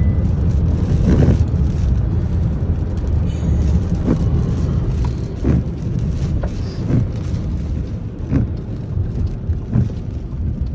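Inside a moving car in hurricane wind and rain: a heavy low rumble of wind buffeting and road noise. The windshield wipers sweep across the glass about every second and a half.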